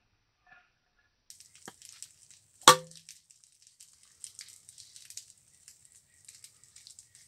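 A single loud, sharp thunk with a short ringing tail as the steel chisel forged from a leaf spring is driven into the top of a wooden stump and sticks there. A fainter tap comes just before it, over a steady high hiss with light crackling.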